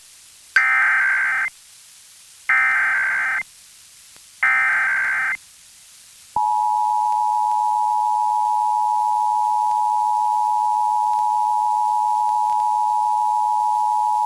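Emergency Alert System SAME header: three separate bursts of digital data tone, about a second each, followed about six seconds in by the EAS attention signal, a steady two-tone 853/960 Hz alert tone held without a break.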